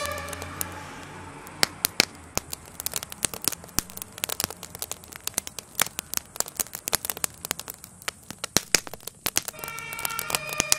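Crackling fire of a burning garden shed, with many sharp irregular pops and snaps. A two-tone emergency siren fades out at the start and comes back near the end.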